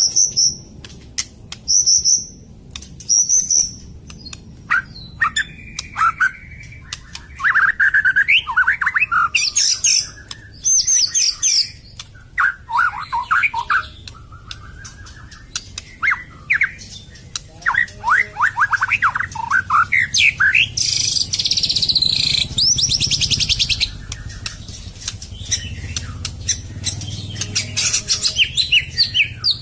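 White-rumped shama singing a loud, varied song: a few short high whistles at first, then fast runs of sweeping notes and rapid harsh, rattling bursts, the rough 'shot' phrases that keepers call tembakan kasar.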